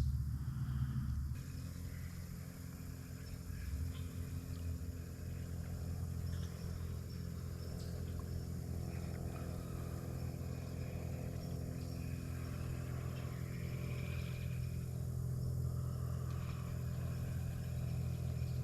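A steady low hum, like an engine running at a distance, holding the same pitch throughout.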